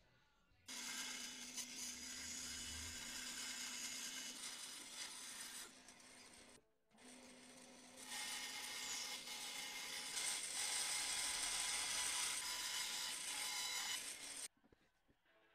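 Benchtop bandsaw running and cutting through a wooden board, a steady whir with a rasping cut. It starts suddenly about a second in, breaks off briefly in the middle and stops suddenly near the end.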